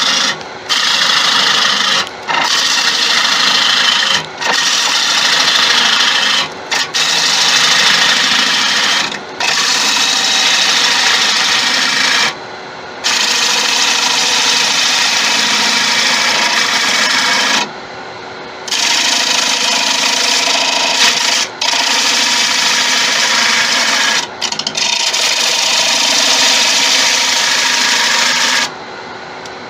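Bowl gouge cutting into the inside of a wooden bowl spinning on a lathe: a steady hissing cut, broken every few seconds by short gaps where the tool comes off the wood, with the lathe still running in the gaps.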